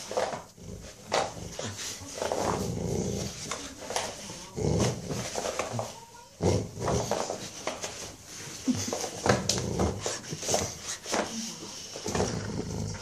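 Boxer dog growling in play while tugging on a towel, in repeated rumbling bouts.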